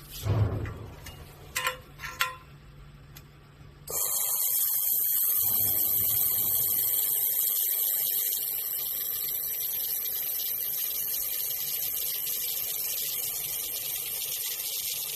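A thump and two short beeps, then about four seconds in a 3000 W laser machine starts firing with a sudden loud, steady hiss that carries on.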